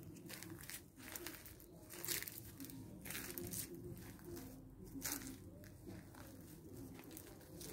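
Faint rustling and crunching of dry leaves and grass as someone walks under a vine, in irregular crackles roughly once a second.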